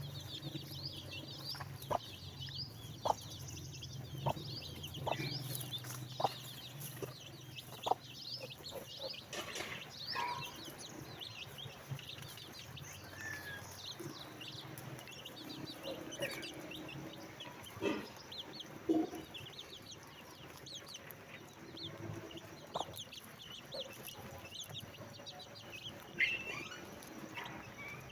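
A flock of baby chicks peeping continuously, many short high chirps that slide downward, with some lower clucking calls mixed in. A few sharp taps come in the first several seconds over a low hum that fades out about a third of the way through.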